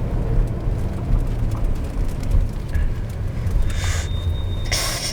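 Steady low road and engine rumble inside a moving car. A short hiss with a thin high tone comes shortly before the end, and a louder rush of noise starts right at the end.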